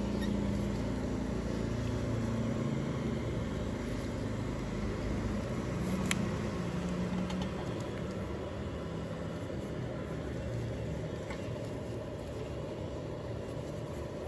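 Steady low mechanical rumble like a running engine, with wavering low tones, and one sharp click about six seconds in.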